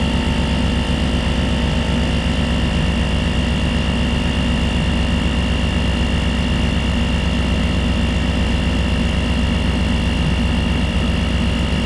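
Small 12-volt piston air compressor built into a portable jump starter, running steadily as it inflates a low pickup tyre from about 12 PSI, with a steady high whine over the rapid pumping.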